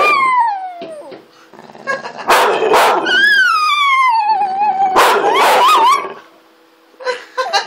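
A small pug-type dog howling: long calls that slide down in pitch, broken by short sharp barks and yips, with a brief lull near the end.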